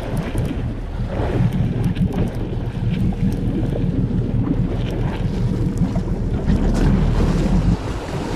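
A boat's engine running steadily under heavy wind buffeting on the microphone, with water churning against the hull.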